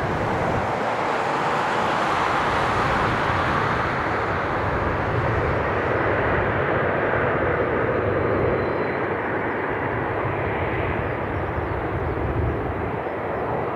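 Jet airliner taking off, its engines a loud continuous roar; the high hiss in the sound dies away about halfway through while a lower rumble goes on.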